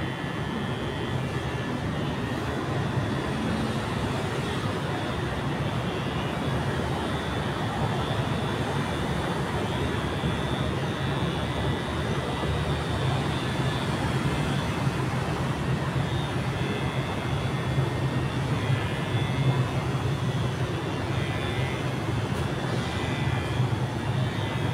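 Electric hair clippers running with a steady buzz as they cut a boy's short hair.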